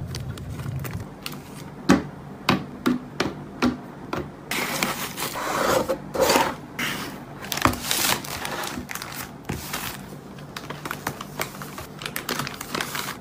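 Parcel-packing handling noises: a run of sharp taps and clicks, then a longer stretch of rustling and scraping as a cardboard mailer box lid is folded shut, then lighter taps and rubbing as stickers are pressed onto plastic mailer bags.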